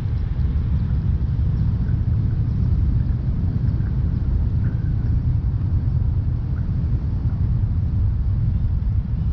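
Steady low rumble of a car driving, with a few faint short chirps.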